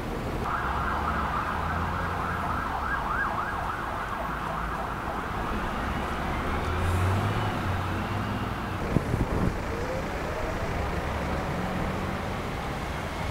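An emergency vehicle's siren wails through street traffic, its pitch swinging quickly up and down, loudest in the first few seconds. It runs over a steady rumble of passing traffic, with a few sharp knocks about nine seconds in.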